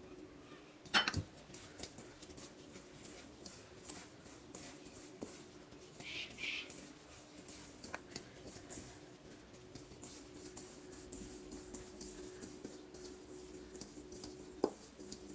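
Hands rubbing flour and oil together in a stainless steel mixing bowl, a soft scratchy rustle. A few metallic clinks against the bowl stand out, the loudest about a second in and another near the end. A faint steady hum runs underneath.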